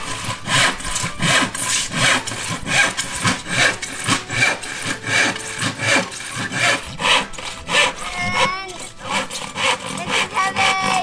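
Hand saw cutting through wood in steady back-and-forth strokes, about two to three a second.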